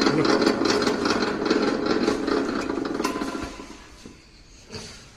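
Electric wire stripping machine running with a fast, even rattle as a long scrap wire feeds through it; the noise dies away about three and a half seconds in.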